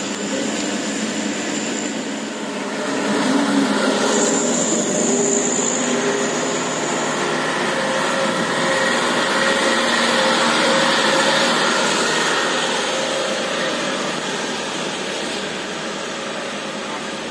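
Diesel engine of a loaded sugarcane truck working hard up a hill, growing louder about three seconds in, at its loudest in the middle and easing off toward the end as the truck passes.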